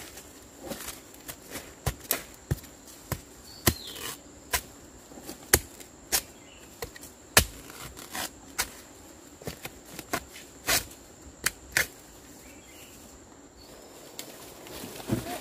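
Machete blade chopping into soil and leaf litter, about twenty uneven strikes that stop about twelve seconds in.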